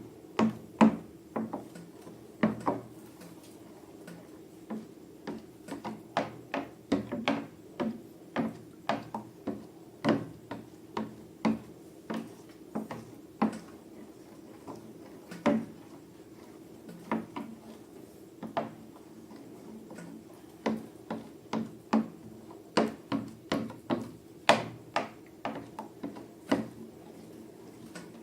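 Irregular sharp clicks and taps of small objects being handled, a few to several a second, over a low steady hum.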